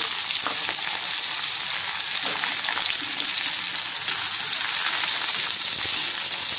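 Chopped onions sizzling steadily in hot oil in an iron kadai, just after being dropped into the oil.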